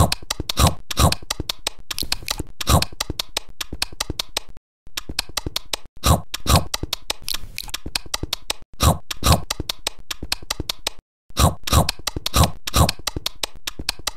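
Close-miked mukbang eating sounds: fast wet chewing, smacking and crunching, with louder bites every half second or so and a few short pauses.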